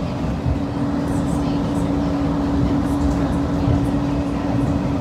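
Cabin noise of an automated airport people-mover train in motion: a steady rumble with one constant low hum.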